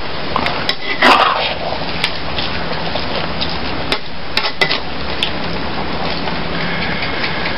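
Long-handled metal ladle stirring and scraping through a thick stew in a steel wok, with several sharp clinks of metal on the pan, over a steady hiss.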